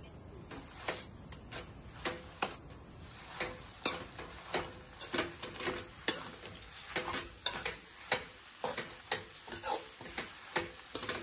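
Metal spatula stirring amaranth greens and boiled moong dal in an aluminium kadai, with repeated irregular clinks and scrapes of the spatula against the pan, about one or two a second.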